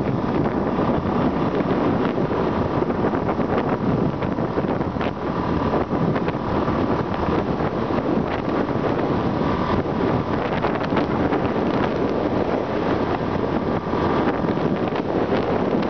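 Wind rushing over the microphone of a camera on a moving motorbike, steady throughout, with the motorbike's engine running underneath and a faint steady whine in the middle range.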